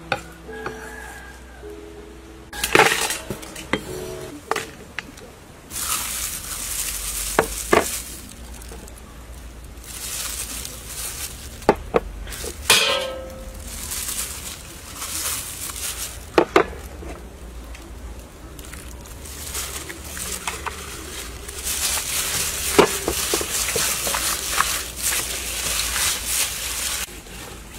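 Food-preparation handling sounds: a few sharp knocks of a cleaver on a wooden chopping board, and stretches of crinkling, rustling plastic food-handling gloves on a raw whole chicken.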